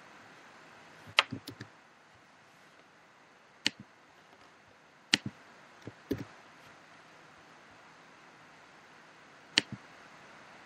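A handful of sharp clicks, each followed by a short low knock, coming at irregular intervals a second or more apart over a steady faint hiss.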